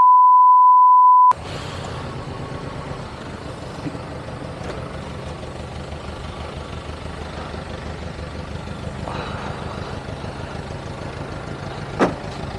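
A loud steady test-tone beep over colour bars, cut off suddenly about a second in, then a small motorcycle engine idling steadily, with one brief sharp knock near the end.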